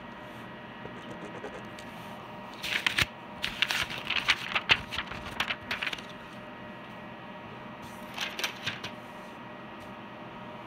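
A flurry of rapid clicks and rustling from about two and a half to six seconds in, and a shorter burst near eight seconds, over a steady electrical hum.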